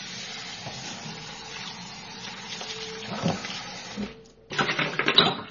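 Liquid homemade laundry soap poured from a pitcher through a funnel into a plastic laundry jug: a steady pouring stream for about four seconds, then louder, choppier splashing near the end.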